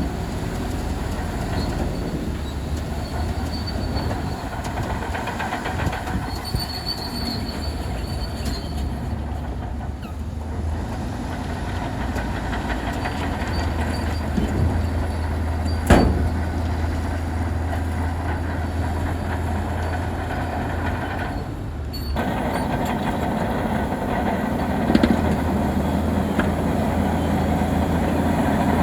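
Crawler bulldozer working: its diesel engine runs with a steady low drone while the steel tracks squeal and clank. There is one sharp clank about halfway through.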